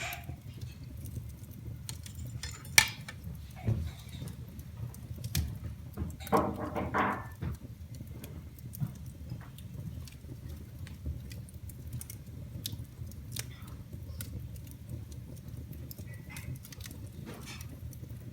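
Wood fire burning in a fireplace: a steady low rumble of flame with scattered crackles and pops, one sharp loud pop about three seconds in. A brief pitched squeal lasting about a second comes up around six seconds in.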